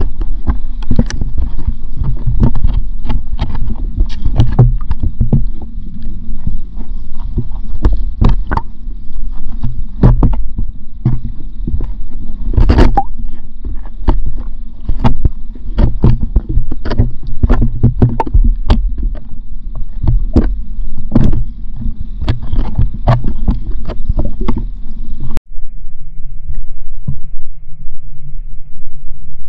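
Muffled underwater sound picked up by a GoPro in its waterproof housing in a pond: a steady low rumble with frequent irregular clicks and knocks. It changes abruptly to a quieter, thinner sound near the end.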